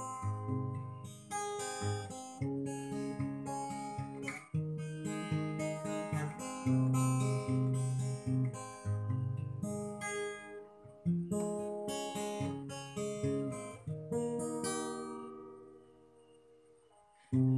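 Acoustic guitar strummed and picked in chords, instrumental. Near the end a chord is left ringing and dies away almost to silence before the strumming starts again.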